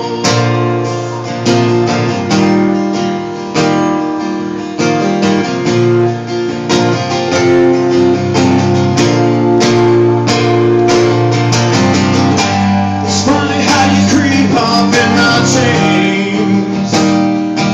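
Acoustic guitar strummed in steady chords, an instrumental passage between the sung verses of a song.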